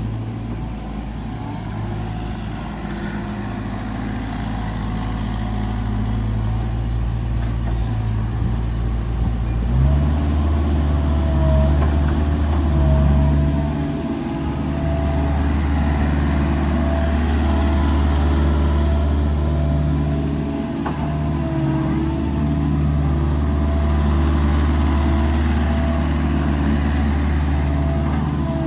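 Kubota RX-505 mini excavator's diesel engine running steadily. About ten seconds in it speeds up and a steady high whine joins it.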